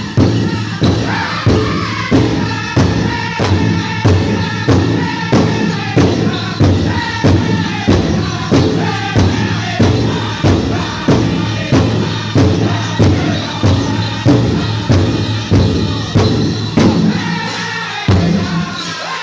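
Powwow drum group: several voices singing together over a large drum struck in a steady beat about twice a second, played for a men's chicken dance. The beat softens near the end.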